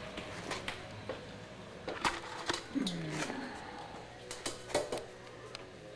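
Scattered light taps and knocks as a shallow dish of insects goes down in an ostrich chick brooder pen. About three seconds in, one short low call falls in pitch, like a chick's coo.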